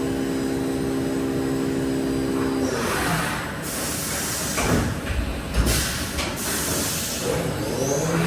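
Haas VF-4SS CNC machining center spindle running at 8,000 RPM with a steady hum of several tones. About three seconds in the hum gives way to a hissing rush that swells several times as the spindle changes speed, then settles into a new steady, lower-pitched tone near the end.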